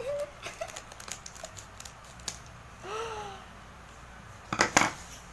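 Scissors snipping through a plastic drink-powder sachet, with crinkling packaging: a string of sharp clicks, densest and loudest about four and a half seconds in. A short rising-and-falling vocal sound comes about three seconds in.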